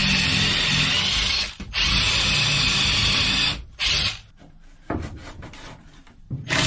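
Cordless Hart 20V drill running at full speed, boring pocket holes with a stepped bit through a pocket-hole jig into a wooden strip: two steady runs of about two seconds each, then a short burst. A quieter stretch of knocks follows before a drill runs again near the end.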